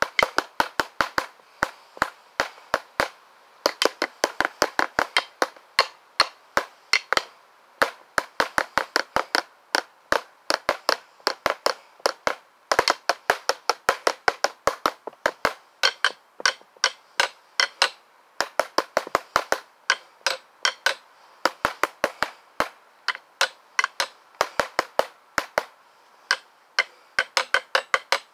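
Drumsticks striking a hard surface in a fast drum pattern: sharp dry clicks, several a second, in runs broken by brief pauses, with no drum boom underneath.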